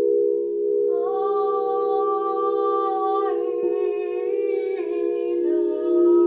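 A steady drone of pure sustained tones, with a voice humming long held notes over it from about a second in. The voice steps to a new pitch three times, as in sound-healing toning.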